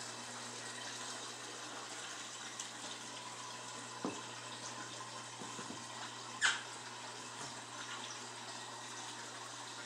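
Aquarium filter water trickling steadily over a low electrical hum. A soft knock about four seconds in and a brief high squeak about six and a half seconds in.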